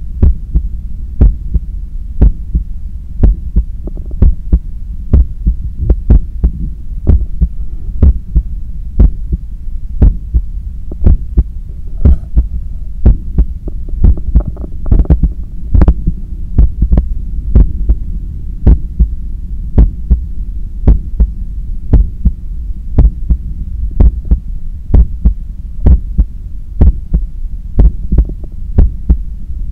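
A human heartbeat heard through a stethoscope as the heart recovers from a 10 km run: strong, regular beats about once a second over a steady low hum.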